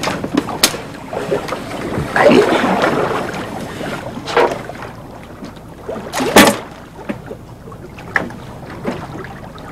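Small open wooden fishing boat at sea: water rushing and slapping against the hull with wind, and a few sharp knocks, the loudest about six seconds in.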